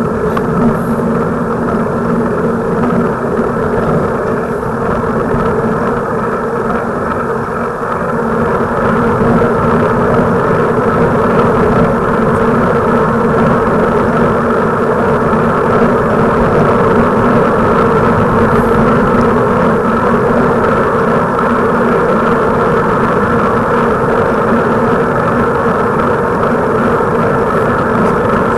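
Steady rushing wind and road noise on a camera carried on a moving bicycle, growing louder about eight seconds in as the speed picks up.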